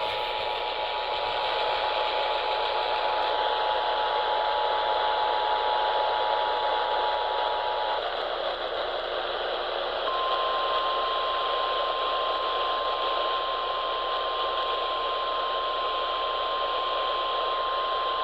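Emergency Alert System attention signal over AM radio, heralding a tornado warning. The steady two-tone alarm sounds for about the first eight seconds; after a short pause, a single, slightly higher steady warning tone follows. A constant hiss of AM static runs underneath.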